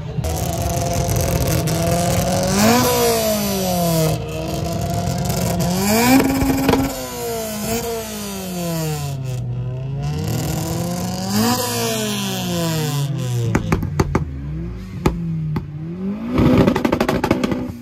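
Car engine revved hard over and over, its pitch climbing and falling about four times. A run of sharp cracks comes near the end.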